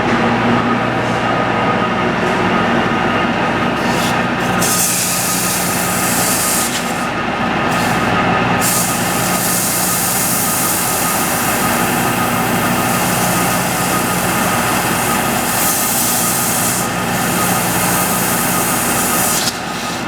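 Repaired sawmill mandrel running at speed under power: a steady mechanical drone at constant pitch, with a high hiss that comes in twice for several seconds.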